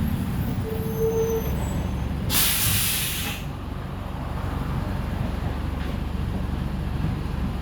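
Mercedes-Benz OF-1418 bus's diesel engine running steadily, with a loud hiss of compressed air from the air brakes lasting about a second, a little over two seconds in.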